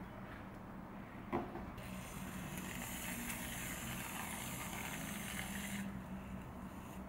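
Aerosol can of whipped cream spraying: a steady hiss of about four seconds that starts and stops abruptly, after a single sharp click about a second in.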